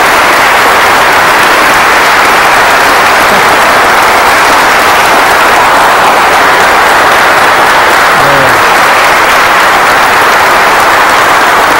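A large audience of men giving a standing ovation: dense, steady applause.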